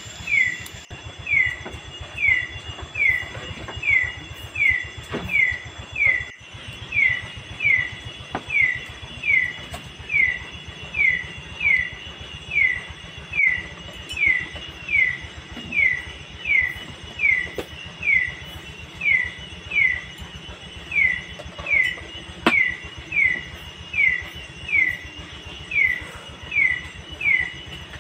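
A night animal calling steadily: one short chirp that falls in pitch, repeated just over once a second, over a low background hiss, with a few faint clicks.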